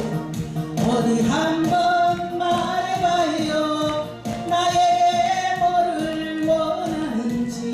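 Korean trot song playing over a backing track, its melody held in long, slightly wavering notes across two phrases, with a short break about four seconds in.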